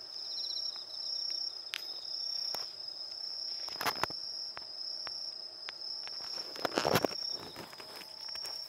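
Crickets trilling in one steady, unbroken high note. A few louder rustling clicks close by break in about halfway through and again near the end.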